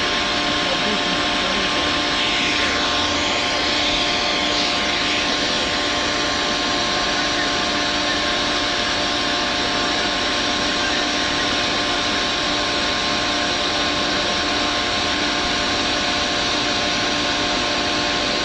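Heavy diesel machinery running steadily, a constant droning hum with several fixed tones over a broad hiss, with no change in pitch or level.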